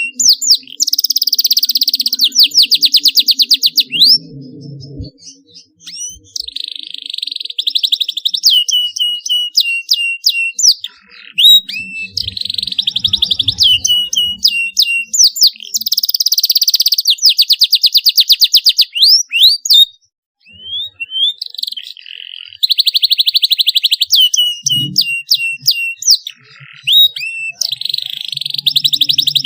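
Canary chirping and trilling: bouts of fast rattling trills alternating with runs of short, falling chirps, with brief pauses between bouts.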